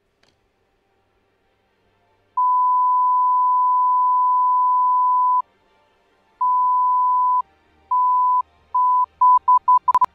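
Electronic beep tone: one long steady beep of about three seconds, then shorter beeps coming faster and faster, ending in a sharp click.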